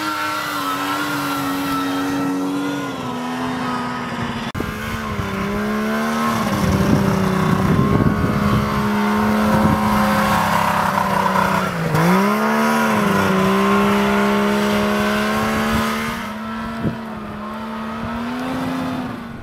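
FinCat G2 tracked all-terrain vehicle's engine running hard through snow. Its note holds fairly steady, then sags and rises again as the throttle changes, with a deep dip and recovery about twelve seconds in.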